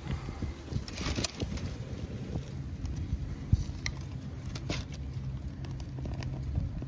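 Dry swamp cabbage palm fronds rustling and crackling as they are handled and start to burn, with scattered sharp snaps, the loudest about halfway through.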